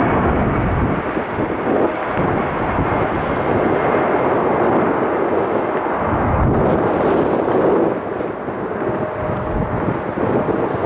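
Boeing 757-300's twin jet engines at takeoff power, a loud steady rumble, with wind buffeting the microphone.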